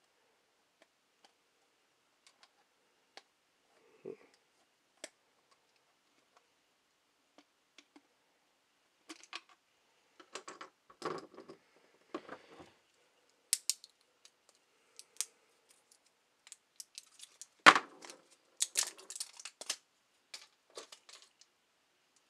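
Hands working a screwdriver on a small battery-powered LED camping lantern's battery door and handling AAA batteries. Sparse faint ticks at first, then a busier run of small clicks and short rustles in the second half, the sharpest click about two-thirds of the way through.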